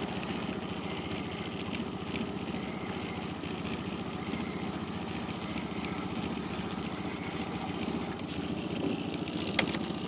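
Small outboard motor running steadily at low trolling speed, with a single sharp click near the end.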